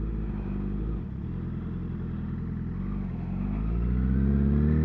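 Sport motorcycle's engine running steadily through a turn, then revving up as it accelerates, the pitch climbing over the last second or two. It is picked up by an external microphone inside the rider's helmet.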